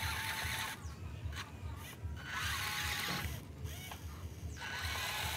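Electric motor and gearbox of a model RC dump truck whirring in several short bursts with pauses between as it drives over dirt.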